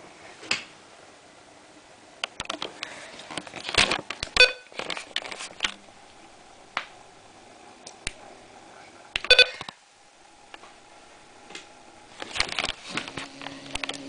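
Weather radios being handled, with clicks and rustling, and two short electronic beeps, about four seconds in and again about nine seconds in.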